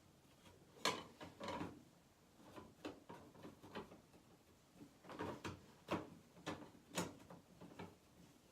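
Light switch and its screw being handled and fitted against the wall while lining the screw up with its hole: faint, irregular clicks, taps and scrapes, about a dozen in all.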